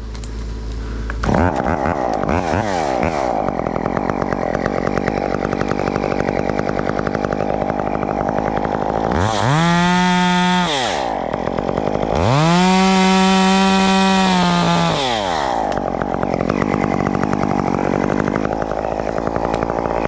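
Chainsaw engine, started about a second in, idling, then revved up to full speed twice, for about two and then three seconds, while its bar is set into a tree limb for a cut.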